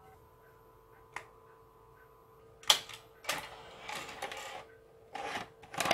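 Victor BR-8600 VCR's cassette mechanism ejecting the tape: a faint steady hum, a small click about a second in, then a sharp click and a couple of seconds of mechanical clicking and clatter.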